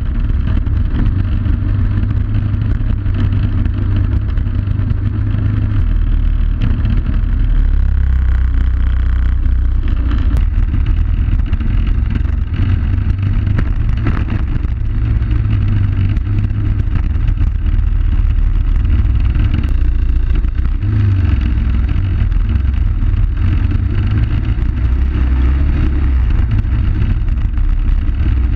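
Suzuki DR800S's big single-cylinder engine running under way on a dirt trail, its low note rising and easing every few seconds with the throttle.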